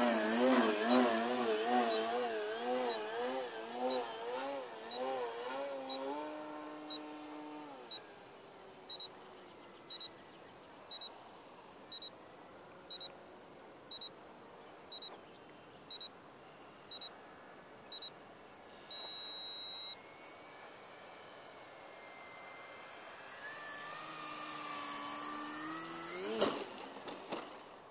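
Brushless electric motor and 12x6 propeller of an RC aerobatic plane whining with a wavering pitch as the throttle is pumped, then throttled back and fading. Electronic beeps sound about once a second, lengthening into one long beep. Near the end the motor whine rises again and a sharp knock comes as the plane touches down on the grass.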